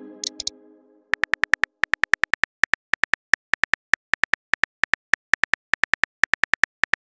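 Chat app's keyboard typing sound effect: a fast, even run of short clicks, several a second, as a message is typed out letter by letter. It begins about a second in, after the fading tail of a message-sent chime and a brief high chirp.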